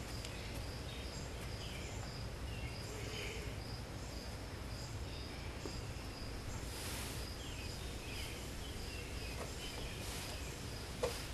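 Insects chirping steadily outdoors, a high, even pulsing over a low background rumble, with a few short higher chirps.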